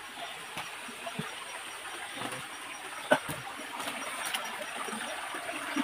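Creek water trickling steadily, with a few faint clicks and one sharp knock about three seconds in.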